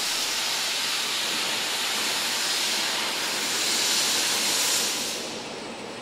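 A 1500 W fiber laser cutting machine running, with a steady, loud hiss of high-pressure assist gas from the cutting head. The hiss eases off about five seconds in.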